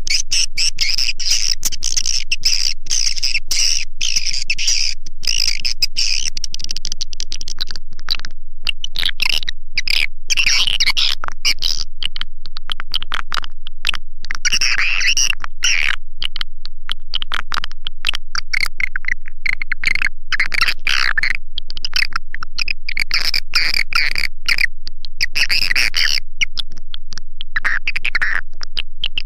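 Swiftlet call recording played back as a lure: a dense, continuous twittering chatter of many edible-nest swiftlets, high-pitched and rapid, swelling and thinning in clusters.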